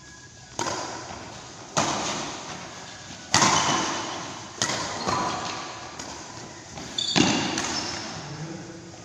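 Badminton rackets striking a shuttlecock in a rally: five or six sharp smacks about a second or so apart, a close pair near the end, each followed by a long echo in the large hall.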